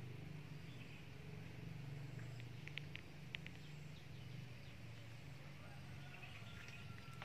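Faint outdoor ambience: a steady low hum, with a few short high ticks about three seconds in.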